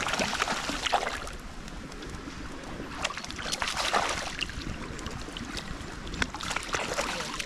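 A hooked trout splashing and thrashing at the surface of the pond in bursts: about a second in, again around three to four seconds, and near the end.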